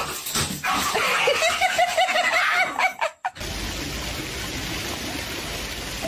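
A rapid string of short, pitched yelping sounds that stops abruptly about three seconds in, followed by the steady hiss of falling water from a water-curtain fountain.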